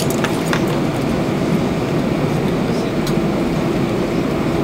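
Airbus A320 cabin noise while taxiing: a steady drone of the idling engines and air conditioning with a constant hum, and a few faint clicks.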